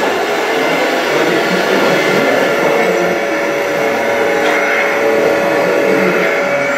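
Radio-controlled scale Mercedes-Benz Arocs three-axle tipper truck driving up a dirt slope under a load of soil, its electric drive and gearbox running with a steady whine.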